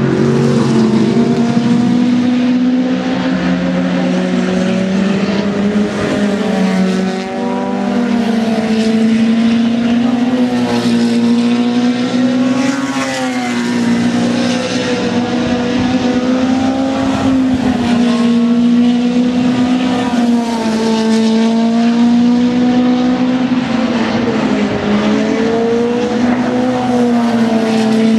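Several race car engines running practice laps on an oval together, with several overlapping engine notes whose pitches rise and fall over and over.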